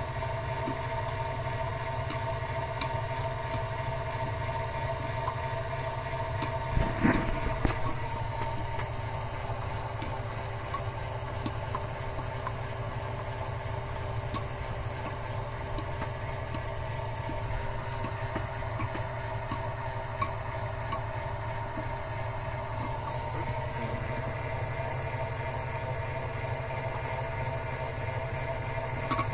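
Homemade single-piston oil pump running steadily on a mini lathe: a continuous mechanical whir with a few steady pitches, and one louder knock about seven seconds in.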